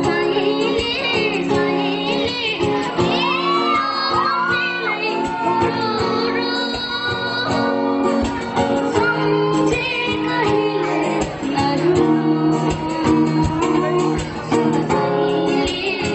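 A song sung with acoustic guitar: a voice sings a melody with sliding ornaments over steady strummed chords.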